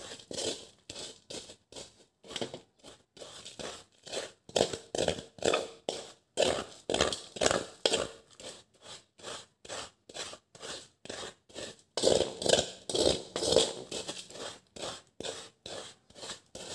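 Metal spoon scraping and crushing dried, cooked turmeric against a bowl in quick repeated strokes, about two a second, breaking it down into powder.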